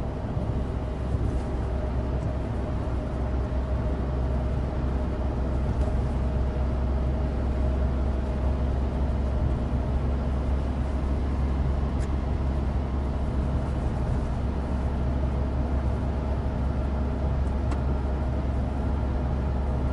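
In-cabin sound of a 2016 Suzuki Alto Turbo RS's small turbocharged three-cylinder engine running steadily at road speed, under a deep, even road rumble from studless winter tyres on dry asphalt.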